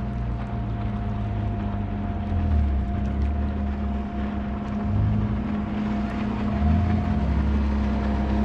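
A motorboat engine on the water, a steady drone, with wind rumbling on the microphone.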